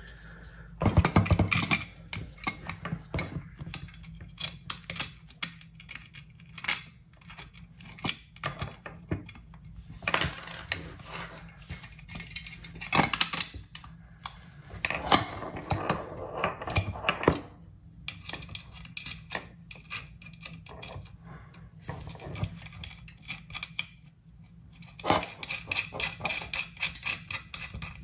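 Steel bolts, nuts and washers clinking and rattling as they are fitted by hand, while the winch body and steel hitch-mount plate knock and scrape against each other. The clicks come irregularly, in several short bouts of handling.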